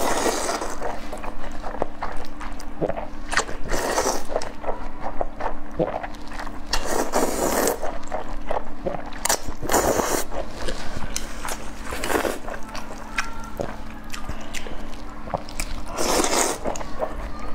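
Close-miked slurping of saucy noodles, about six long slurps spread through, with wet chewing and small mouth clicks between them over a faint steady hum.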